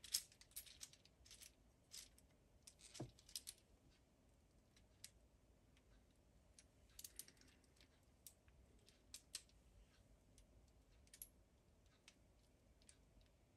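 Faint, irregular clicking and ticking of Lego Technic plastic parts as a hand-built Lego V8 engine model is handled and turned by hand. The clicks come thickly in the first few seconds, then more sparsely.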